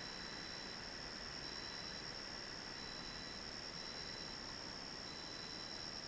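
Crickets singing in a steady high chorus, with an even hiss from the trail camera's microphone.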